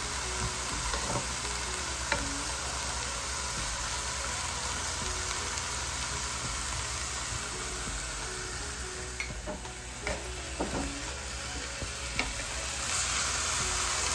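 Food frying in hot oil in a pan, a steady sizzle that grows louder near the end, with a few sharp taps of a utensil against the pan as it is stirred.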